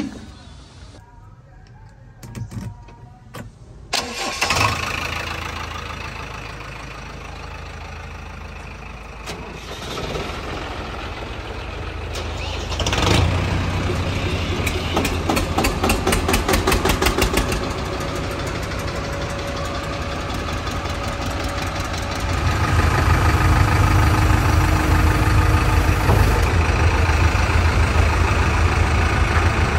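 Diesel tractor engine starting about four seconds in, then running. Later on a louder, deeper engine, the JCB 3DX backhoe loader's diesel, runs steadily to the end.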